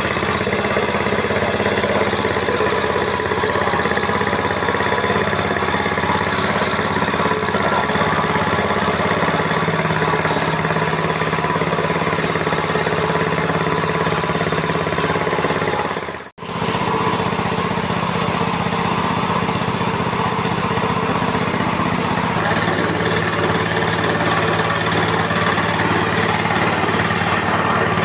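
FFC 23 corn disk mill running steadily, a loud machine drone with a low hum. It cuts out for an instant a little past halfway, and the hum shifts slightly about three-quarters of the way through.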